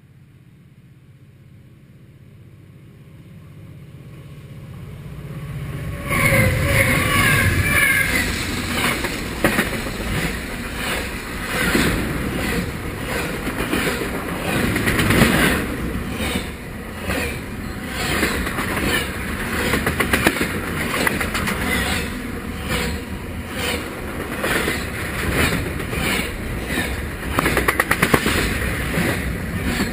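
Norfolk Southern intermodal freight train approaching with a slowly building rumble, then passing right beside the track at speed from about six seconds in. Loud wheel clatter and rapid clicking over the rail joints follow as the cars go by.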